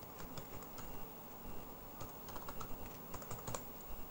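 Computer keyboard typing, faint, in a few short runs of keystrokes with pauses between them.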